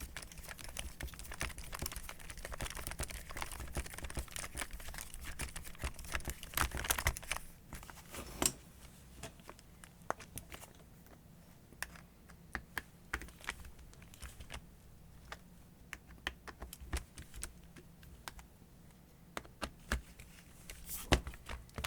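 Small metal parts of an angle grinder's gear head being handled and fitted: irregular light clicks and taps, busy for the first several seconds, then sparser.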